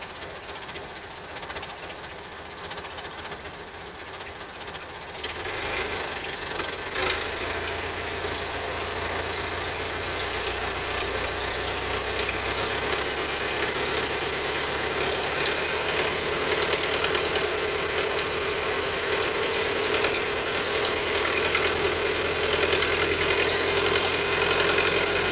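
Hitachi ZX210F excavator's diesel engine running, growing louder about five seconds in, with a whine that rises slowly in pitch and one sharp metallic knock shortly after.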